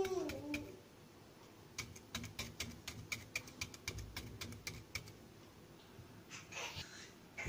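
Fork tines pricking a peeled apple half on a ceramic plate: a quick run of light clicks, several a second, as the tines go through the apple and strike the plate.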